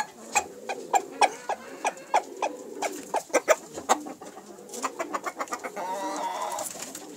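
Rooster clucking in a run of short, quick notes, about three a second, with one longer wavering call near the end.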